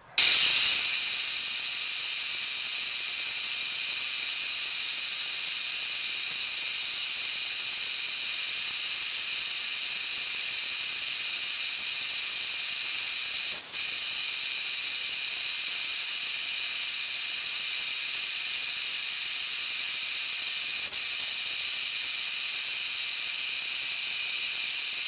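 Vertical milling machine cutting a slot with a 1/8-inch end mill: a steady high-pitched hiss, with a brief dropout about halfway through.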